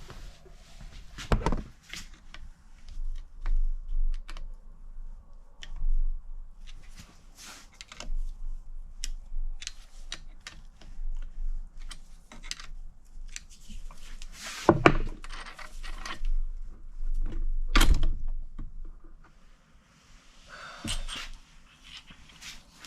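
Scattered metal clinks and knocks of main bearing caps and their bolts being lifted off a BMW S63 engine block and set down, with two louder knocks in the second half.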